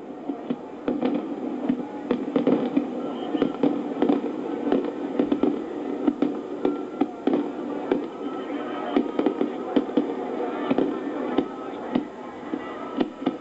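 Fireworks going off in rapid, irregular succession: many sharp bangs and cracks, several a second, over a continuous rumble.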